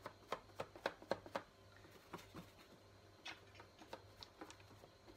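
Soft taps of a paint-loaded balloon being dabbed onto paper: a quick run of about three taps a second, then fainter, sparser taps.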